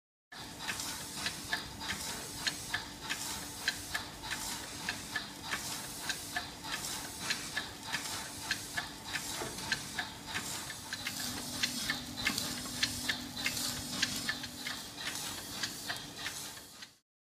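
Worthington Simpson duplex steam boiler feed pump running at normal speed after a major rebuild: a steady steam hiss with a regular ticking of the valve gear, about two ticks a second.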